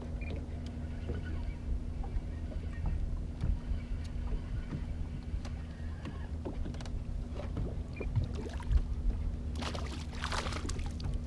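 Boat engine idling with a steady low hum. About ten seconds in, a short burst of louder rushing noise rises over it.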